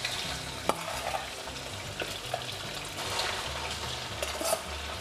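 Raw marinated pork belly pieces sizzling in hot oil in a wok, just put in to fry. A metal spatula clinks and scrapes against the wok a few times as the pieces are spread out.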